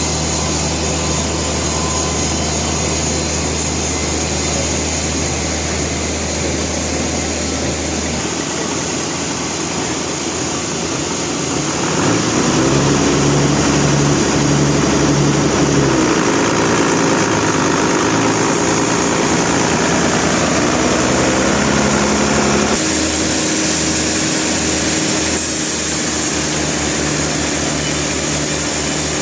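Sawmill machinery running steadily, with an engine-like hum and whine. Its pitch and loudness shift abruptly several times, and it is loudest through the middle.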